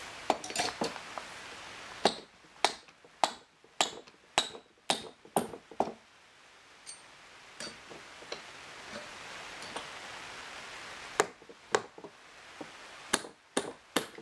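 Hammer striking a wood chisel to chop into a timber beam: a run of sharp strikes about two a second, a lull with only light taps, then a few more strikes near the end.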